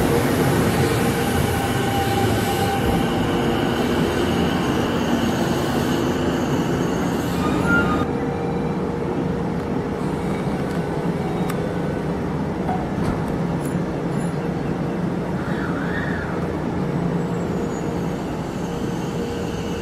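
Sanyo Electric Railway electric train braking into the platform and coming to a stop about eight seconds in, then standing with its equipment giving a steady hum.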